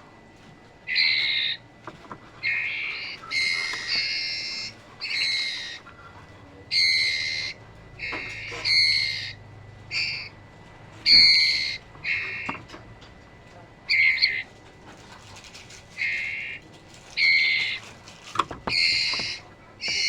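Trotol birds giving repeated clear, pitched calls, each about half a second long, one after another every second or so and sometimes in quick pairs.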